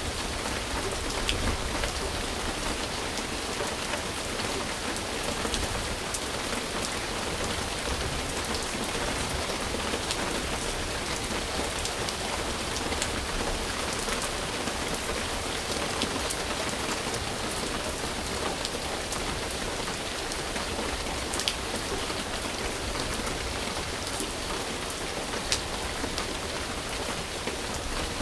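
Steady rain falling on a surface, with scattered individual drops ticking through it and two sharper drops near the end.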